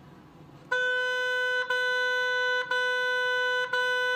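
Oboe playing the note B, tongued: four even, separate notes about a second apart, starting just under a second in, each begun by a light touch of the tongue on the reed.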